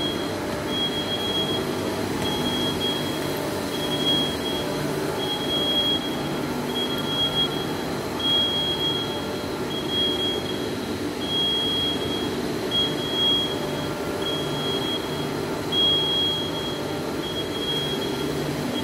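Cable-factory production machinery running with a steady mechanical din. A high-pitched tone comes and goes about every second and a half over a lower, pulsing hum.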